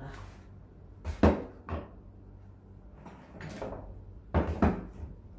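Bottles and toiletry containers being picked up and set back down on a dresser top: a string of short, hard clunks at uneven intervals, some in quick pairs.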